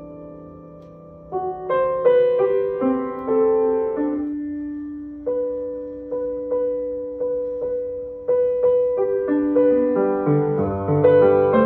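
Grand piano played solo, a slow, gentle piece: a held chord rings at first, then a melody moves over a repeated note, and about ten seconds in low bass notes come in and the playing grows fuller.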